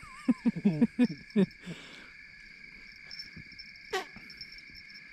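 Crickets chirping steadily in a chorus. Brief voices come in the first second or so, and a single sharp click about four seconds in.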